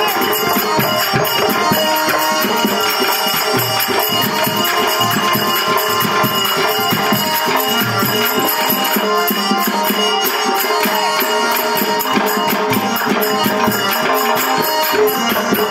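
Live traditional Telugu folk music accompanying a sung story: steady held tones under fast, continuous jingling percussion.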